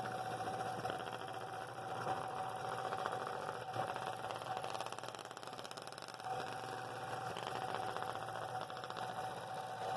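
Scroll saw running with a number 7 blade cutting a mahogany blank at a 28-degree bevel: a steady, fast buzz of the reciprocating blade.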